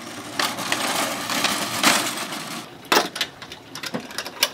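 A go-kart rolled along a wooden plank makes a steady rolling noise for about two and a half seconds. Then a few sharp clicks and knocks follow as a toolbox's metal latches are handled.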